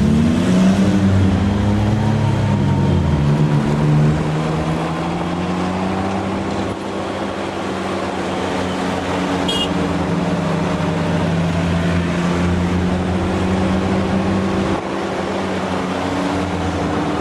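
Engine of the vehicle carrying the camera running steadily while driving through town traffic. In the first three seconds a second engine note crosses it, sliding in pitch as another vehicle passes close.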